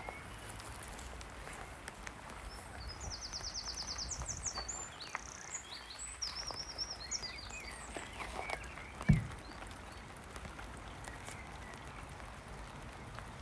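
Faint outdoor ambience with small birds chirping and twittering between about three and eight seconds in, and a single thump about nine seconds in.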